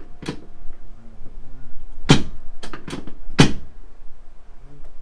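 Sharp cracks and clacks during a chiropractic adjustment: one shortly after the start, then a quick run of about five over a second and a half around the middle, the first and last of these the loudest.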